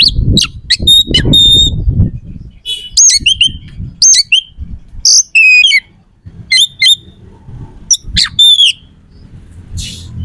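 Oriental magpie-robin singing an agitated, territorial song of sharp whistled notes, rising and falling slurs and harsh rasping calls, delivered in quick phrases broken by short pauses, over a low background rumble.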